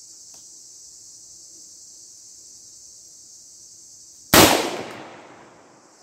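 A single shot from a Derya MK-12 semi-automatic 12-gauge shotgun a little over four seconds in, echoing away over a second or so, over a steady high-pitched buzz of insects.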